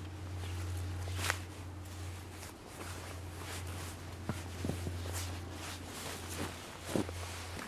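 Thin cord being pulled and wrapped around a tree trunk, with the rustle of cord and jacket and a few short sharp clicks, over a steady low hum.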